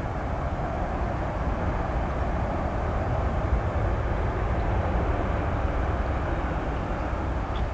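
Boeing 747-400 freighter's four jet engines running after landing, a steady, even rumble that swells slightly midway.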